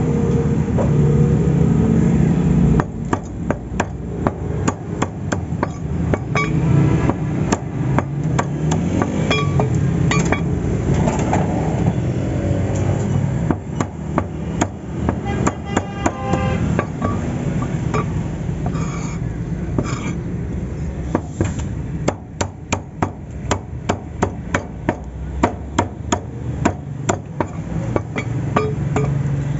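Meat cleaver chopping chicken on a wooden log chopping block: repeated sharp chops that start about three seconds in, then run fast and even at about three a second near the end.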